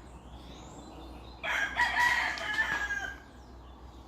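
A rooster crowing once, a single drawn-out call of a little under two seconds starting about a second and a half in.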